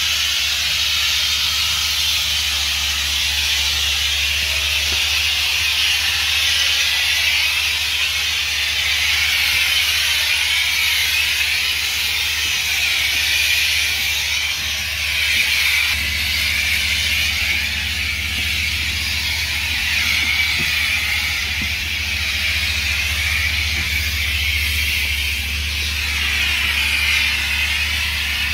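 Pressure washer lance spraying diluted sodium hypochlorite onto stone paving: a steady hiss of spray. Under it runs the pressure washer's low engine hum, a little louder from about halfway.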